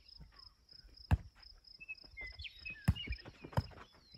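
A volleyball being hit in play: sharp slaps about a second in and twice near the end, the first the loudest. Behind them a cricket chirps steadily at about four pulses a second.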